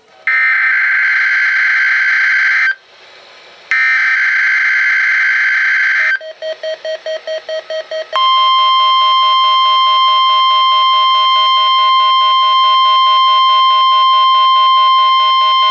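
NOAA Weather Radio weekly test alert: two loud bursts of screechy SAME digital header data about a second apart, then a rapid pulsing lower tone. About eight seconds in, the steady 1050 Hz warning alarm tone starts and holds.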